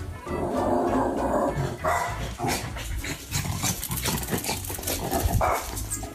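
A dog barking in several irregular outbursts, with music underneath.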